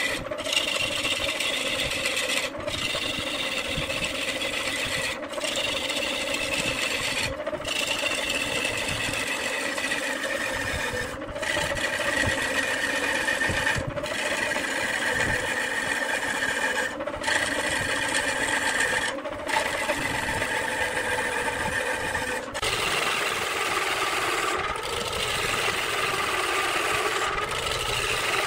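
Wood lathe running while a turning tool cuts the spinning wood: a steady scraping hiss over a humming tone that slowly sinks in pitch. It is broken by brief dropouts every two or three seconds.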